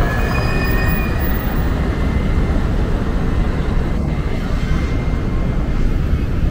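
Steady low rumble of downtown street traffic on wet roads. A faint high-pitched whine from a TTC streetcar can be heard through the first half.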